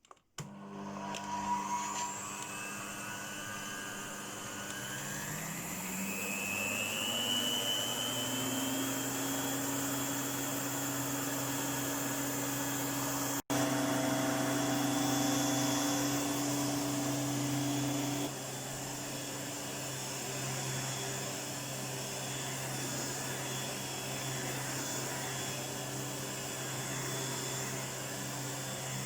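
1988 Electrolux 612 upright vacuum cleaner switched on, its motor whining up in pitch over several seconds to full speed and then running steadily. The sound drops out for an instant about thirteen seconds in.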